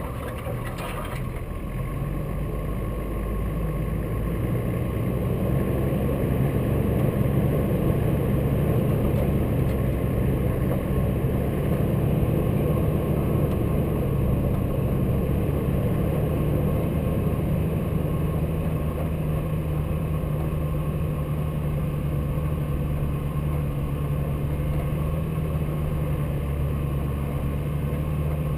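A Nissan Patrol 4x4's engine runs steadily at low speed as it drives on snow, with the rumble of its tyres in the snow underneath. The engine picks up slightly a few seconds in and then holds an even note.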